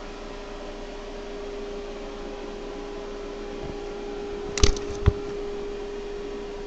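A running motor gives a steady mechanical whir with one constant tone. Two sharp knocks come about half a second apart, a little past the middle.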